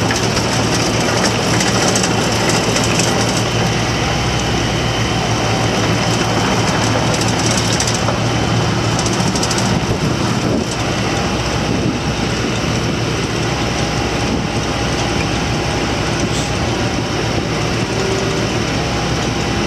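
A 1998 IHI 35J mini excavator's diesel engine runs steadily under load while the machine travels on its tracks, with a continuous mechanical clatter; the sound drops slightly about halfway through.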